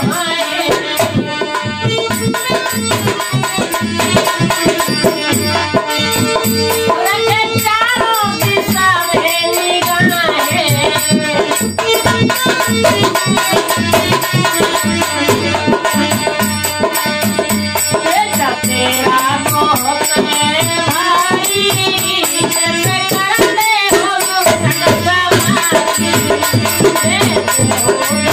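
Ganesh bhajan played on dholak drum and harmonium, with a man singing the melody over a steady drum beat.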